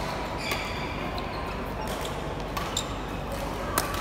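Badminton rally: sharp racket strikes on the shuttlecock, a few over a second apart with the loudest near the end, and short squeaks of shoes on the court floor.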